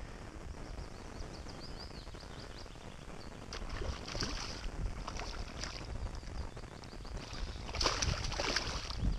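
Spinning reel being wound in with a fine, fast ticking while a hooked zander fights on the line, splashing at the surface about four seconds in and, loudest, about eight seconds in.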